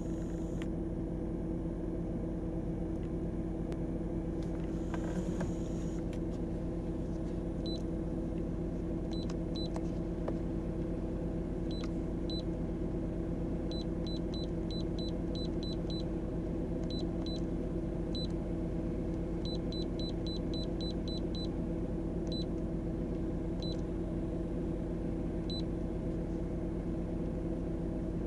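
Short high beeps from a handheld OBD diagnostic scanner's keypad as its buttons are pressed to scroll the menus, sometimes single and sometimes in quick runs of about four a second. Under them runs the steady low hum of the Volvo's engine idling, heard inside the cabin.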